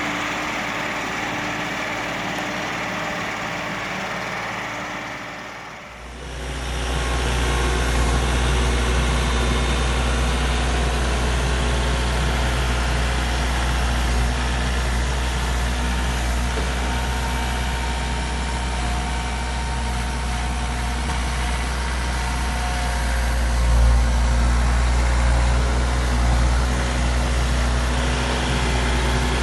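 Engine running steadily. About six seconds in, the sound changes abruptly to a louder, deeper engine hum that runs on evenly, with one brief louder swell near the end.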